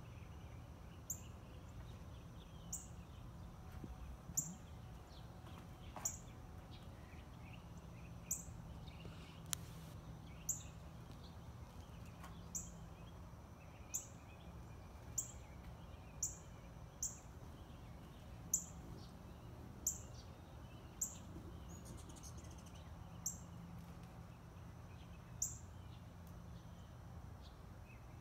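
A bird repeating a single short, sharp, very high-pitched downslurred chip note about every one to two seconds, over a faint steady low hum.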